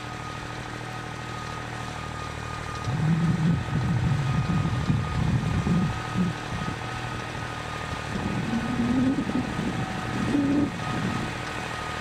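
Siromer 204S compact tractor's diesel engine running under load while pulling a plough, heard from a distance. Its low rumble turns louder and uneven from about three seconds in, wavering up and down.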